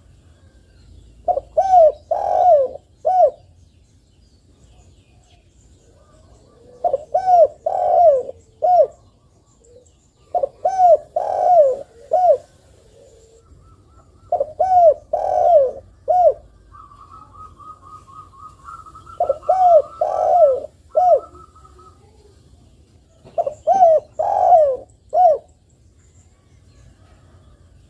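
Spotted dove cooing, repeating a phrase of three or four short coos about every four seconds, six times.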